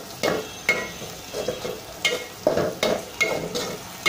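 Metal spatula scraping and stirring in a metal pot, in repeated strokes about two a second, as shrimp and onions sizzle in oil.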